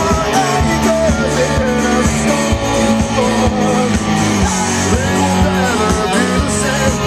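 Rock song playing: guitars over a steady drum beat.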